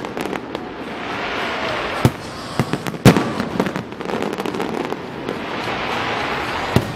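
Display fireworks going off: a run of sharp bangs with crackling between them, the loudest bang about three seconds in.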